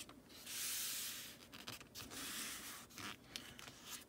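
A hand rubbing and pressing a glue-coated cardboard cutout flat onto a sheet of foam core board, a few dry rasping strokes about a second each.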